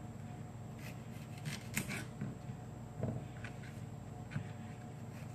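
Kitchen knife cutting bell pepper on a cutting board: a handful of short, scattered scrapes and taps over a steady low hum.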